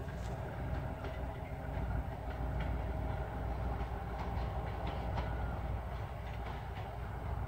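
Diesel engine of a D1 diesel-train motor car running steadily under load up a grade, a continuous low drone. The wheels click now and then over rail joints.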